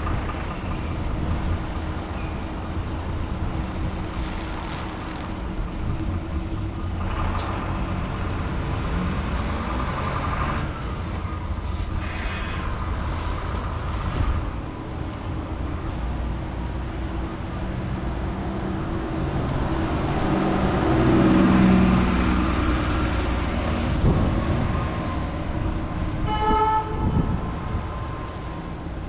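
City buses running and driving by on a wet road, their diesel engines rumbling, with one louder pass about two-thirds of the way in. A short horn-like toot sounds near the end.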